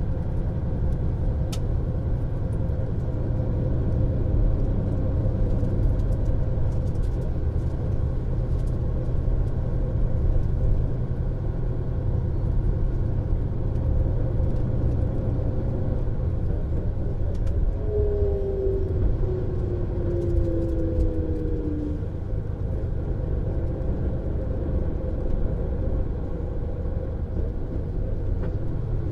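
MAN Lion's Coach running along the road with a steady engine and road rumble. About 18 seconds in, a whine falls in pitch for about four seconds.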